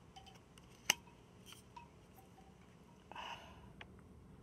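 Tarot cards being handled: one sharp click about a second in, then a short swish of a card being slid off the deck just after three seconds, with faint ticks in between.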